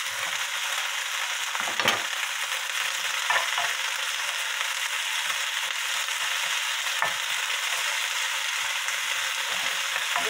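Bean sprouts and Manila clams sizzling with a steady hiss in an oiled frying pan as they are tossed with two wooden spoons, the spoons knocking against the pan a few times.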